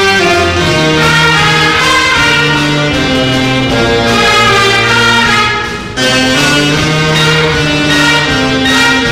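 Brass and wind band playing: clarinet, saxophones and brass hold chords over a stepping sousaphone bass line. The band breaks off briefly between phrases just before six seconds in, then comes back in.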